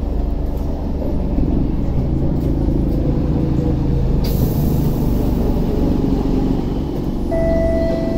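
Singapore MRT train heard from inside the carriage as it pulls into a station: a steady low rumble with motor tones, a short hiss of air about four seconds in, and a steady high tone that starts near the end.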